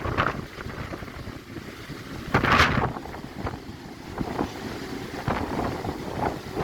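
Strong gusty wind buffeting the microphone over water sloshing in a cruise ship's open-deck pool, which the wind has whipped into waves. A louder rush of wind or water comes about two and a half seconds in.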